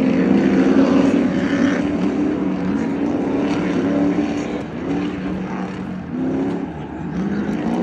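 Several stadium truck engines revving hard as the trucks race around the infield course. Their overlapping engine notes climb and drop again and again with the gear changes, heard from the grandstand.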